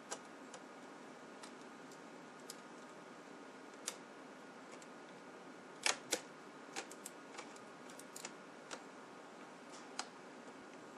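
Small screwdriver clicking against the tiny mounting screws and metal bracket of a replacement laptop LCD panel as it is screwed into the lid: scattered light clicks, the loudest a pair about halfway through, over a steady low hiss.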